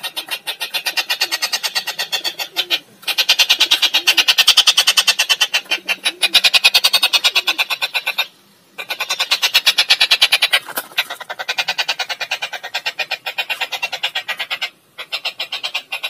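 Caged songbird singing a loud, rapid trill of about eight notes a second, in long runs broken by short pauses.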